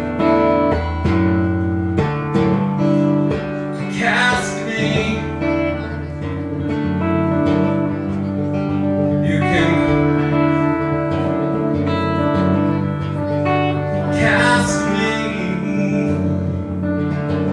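Live looped music: guitar playing over layered, repeating loops, with a bright swell coming round about every five seconds.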